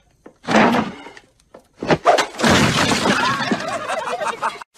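A cartoon crash with thuds and breaking, then several people laughing loudly together.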